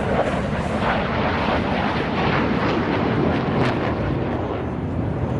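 Single-engine J-10 fighter jet passing, a loud, continuous jet noise with crackle through it.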